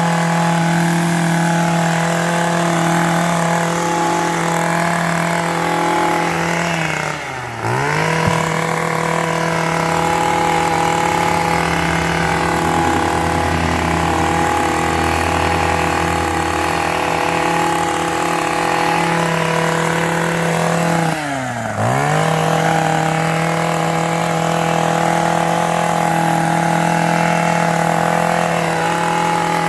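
Echo gas hedge trimmer's two-stroke engine running at a steady high speed while cutting. The throttle is let off briefly three times, about seven seconds in, about twenty-one seconds in and near the end, and each time the engine note drops and climbs straight back.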